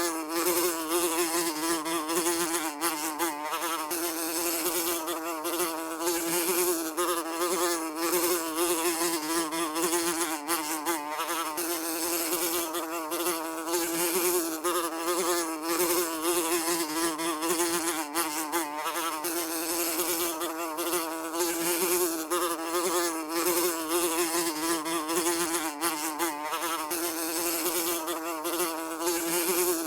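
A fly buzzing in continuous flight, a steady wing-beat drone whose pitch wavers slightly up and down.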